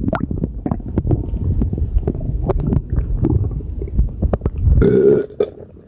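A person's stomach gurgling and rumbling with many small pops, then one loud, drawn-out burp near the end.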